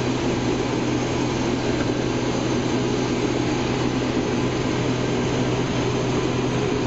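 Case IH 2388 Axial-Flow combine running steadily under load while cutting and threshing wheat. A constant low engine hum sits under a dense, even roar of the separator and header, with no change in speed.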